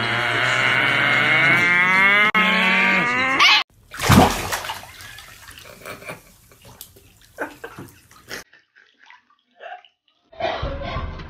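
A small dog howling in one long, wavering call that cuts off abruptly about three and a half seconds in. Then comes a sharp knock, a few scattered faint sounds and a short silence.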